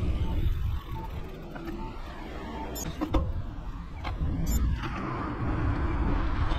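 Wind buffeting the microphone of a camera mounted on a moving road bike, heard as a rough rumble that dips about a second in and builds again near the end. A few sharp clicks come around the middle. The audio runs at double speed.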